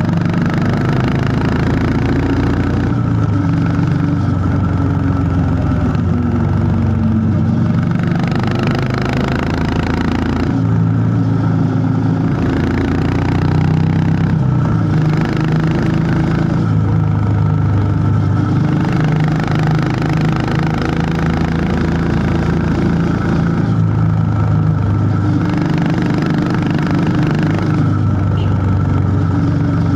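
Honda CB350 H'ness motorcycle's air-cooled single-cylinder engine running on the move, its pitch climbing and dropping again and again as the rider accelerates and changes gear.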